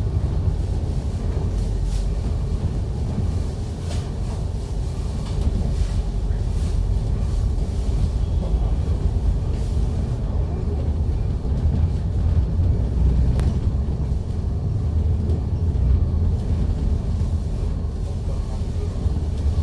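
MAN Lion's City double-decker bus on the move, its Euro 5 diesel engine and drivetrain a steady low rumble, with a few faint clicks and rattles.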